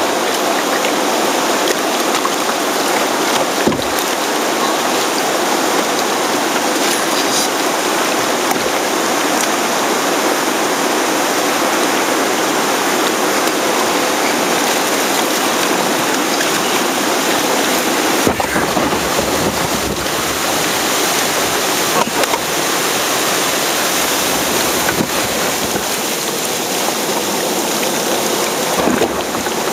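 Rushing river rapids around the bow of a Feel Free Moken 10 sit-on-top kayak, a steady loud wash with water splashing over the deck. There are a few brief sharp splashes or knocks scattered through.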